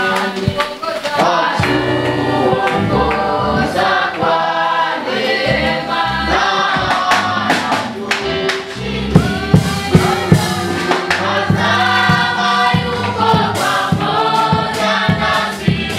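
A choir singing a Swahili gospel song with instrumental backing, steady bass notes under the voices; a few loud percussive hits about nine seconds in.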